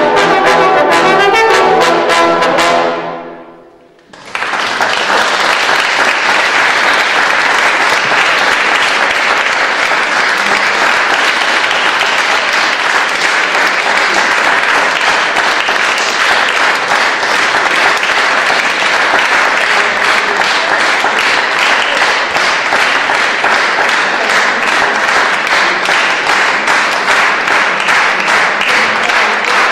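A trombone quartet holds a final chord that fades out about three seconds in. About a second later the audience breaks into steady applause.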